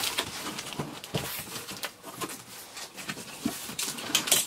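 Cardboard flaps of a taped shipping box rustling and scraping as they are pulled open and pressed back, with scattered light knocks and crackles of cardboard and packing tape.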